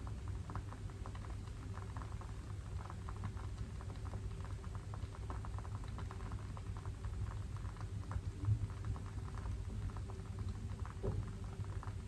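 Wooden wick of a CrackleWick candle crackling as it burns: a rapid, irregular run of small pops and clicks, like a miniature log fire, over a low steady background rumble.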